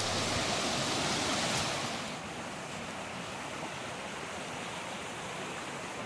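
Small mountain stream rushing over mossy rocks in a steady rush, a little louder for the first two seconds.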